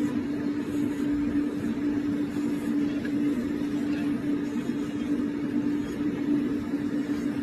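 A steady mechanical hum with one constant tone running unchanged.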